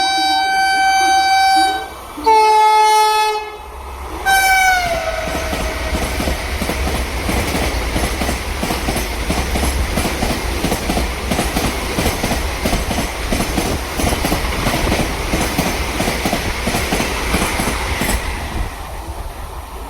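Indian Railways train sounding its horn in three blasts, the last one dropping in pitch as the train passes. Its coaches then rush past with a fast, continuous clickety-clack of wheels over rail joints and a low rumble, which fades away near the end.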